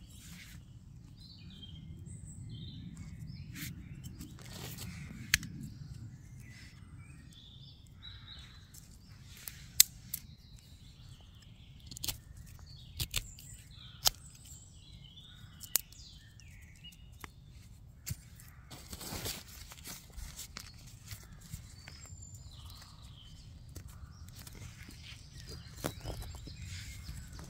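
Small birds chirping and tweeting in a forest over a steady low background, with a handful of sharp clicks as a knife whittles a small wooden stick, most of them between about twelve and sixteen seconds in.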